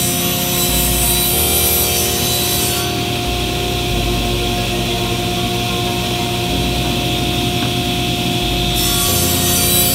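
SawStop contractor table saw running with its blade tilted to 45 degrees, bevel-cutting plywood. The high cutting hiss is strongest for the first three seconds and again from about nine seconds in, over the steady run of the saw.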